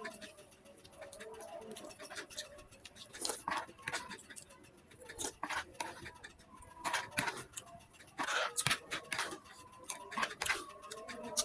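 Eating noises: a spoon clicking and scraping on a plate in irregular taps as the last of a meal is scooped up.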